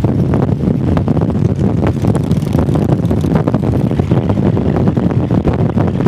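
Motorcycle engine running steadily while riding at road speed, with wind buffeting the microphone in quick crackling gusts.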